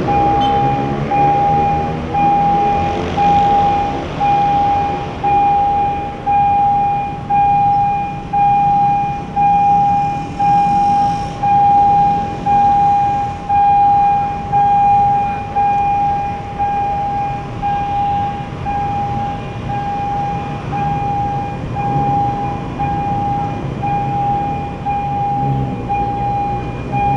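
Level-crossing warning alarm beeping over and over at an even pace, about one beep every 0.7 seconds, over the running of motorcycle engines, with a motorcycle pulling away at the start.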